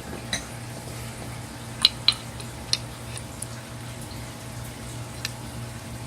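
A few light metallic clicks and taps from a wrench working the nut that holds the cylinder on an air-horn solenoid valve, over a steady low hum.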